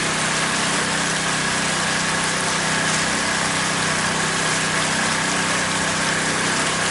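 Pontoon boat's outboard motor running steadily, an even drone with a thin, steady high whine above it.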